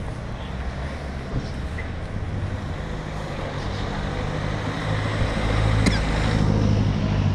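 Motor vehicle engine running close by over street noise, a low hum that grows louder over the last couple of seconds, with one sharp click about six seconds in.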